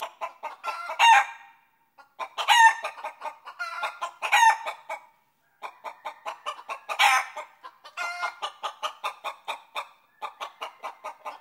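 Chickens clucking in quick runs of short calls, broken by a few louder, drawn-out squawks. The calling stops briefly twice.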